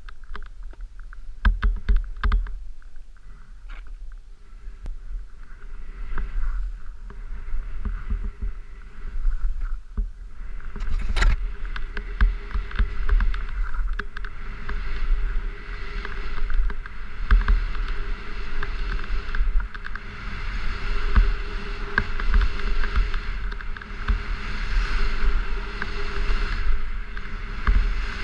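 Wind buffeting an action camera's microphone during a fast ski descent, with skis hissing through powder snow and scattered knocks; a single sharp knock stands out about eleven seconds in, and the rushing hiss grows stronger from then on.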